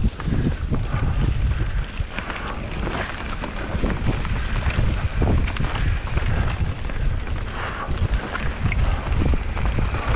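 Wind buffeting the microphone of a camera on a moving mountain bike, with tyre noise and scattered knocks and rattles from the bike riding over a rough dirt forest trail.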